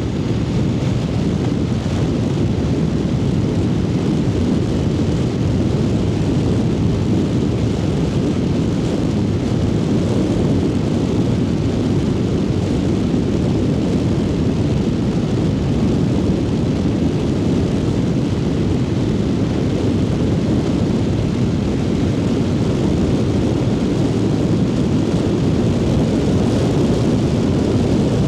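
Triumph Speed Twin 900's parallel-twin engine running steadily on the move, blended with rushing wind noise. It is a dense, even low rumble with no clear revving changes.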